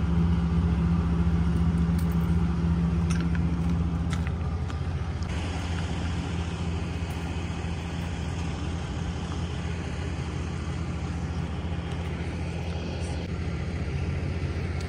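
A vehicle engine running steadily with a low, even hum that eases a little about five seconds in; a couple of faint clicks near three and four seconds.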